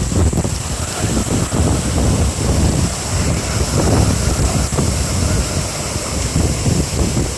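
Very strong gusty typhoon wind buffeting the microphone: a heavy low rumble that swells and eases with the gusts.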